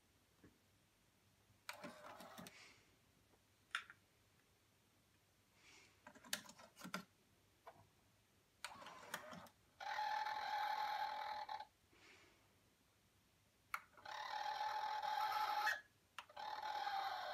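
Sony TC-K222ESG cassette deck mechanism: clicks and clacks as the cassette door opens and a tape is loaded, then the transport motor whirring in runs of about two seconds, three times, each with a steady whine. The mechanism is running on freshly replaced rubber belts.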